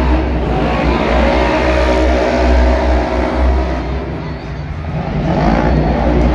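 Engines of small side-by-side off-road racing vehicles revving hard under a steady low rumble, their pitch rising and falling. They ease off about four seconds in, then climb again.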